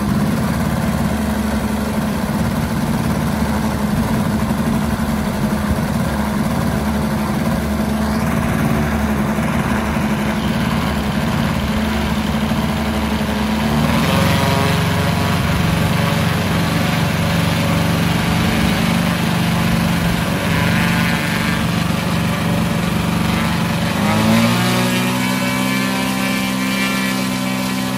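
DA-200 four-cylinder boxer engine of a 40%-scale model Extra 330 LX running on the ground with its propeller turning, idling steadily. Its note changes about halfway through and steps up in pitch near the end.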